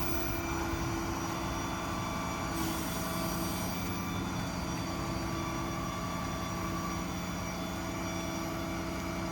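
Hydraulic truck crane running off the 6.7 Power Stroke diesel at raised idle: a steady hum with a few held tones that shift slightly as the crane moves, and a short hiss about three seconds in.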